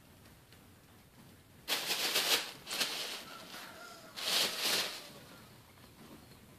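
Tissue paper rustling and crinkling in three short bursts as a cat pounces and burrows into it.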